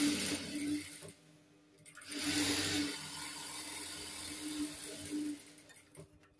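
Industrial lockstitch sewing machine running as it stitches a seam through cotton blouse fabric, in two spells: a short run of about a second, a pause, then a longer run of about three seconds.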